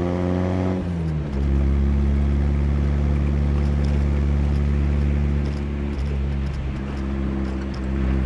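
1982 Chevrolet Chevette's rebuilt 1.4-litre four-cylinder engine under way. Its note climbs under acceleration for about a second, then falls sharply at a gear change, and holds a steady drone at cruising revs. It eases off briefly about six seconds in, then settles into a steady note again.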